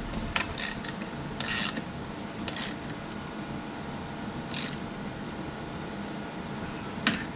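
A handful of short bursts of ratcheting clicks at uneven intervals, and a single sharp click near the end, from hand work on a BMX bike's rear wheel and chain.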